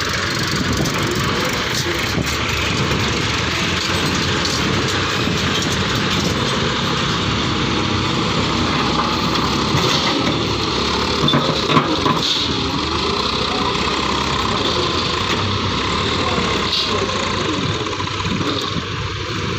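John Deere 5310 tractor's diesel engine running steadily.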